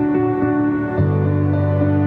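Calm background music: a slow melody over held bass notes, the bass shifting to a new note about a second in.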